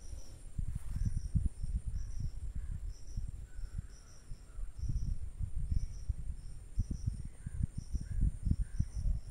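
Insect chirping outdoors in short, evenly repeated chirps, about two a second, over irregular low rumbling on the microphone.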